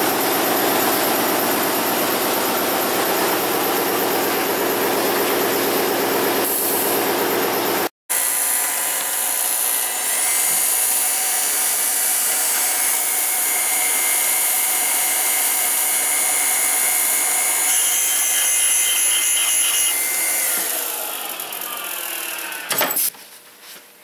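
Loud shop machinery running steadily, then, after an abrupt cut, a valve grinder (valve refacing machine) running and grinding, which winds down near the end and stops with a sharp click.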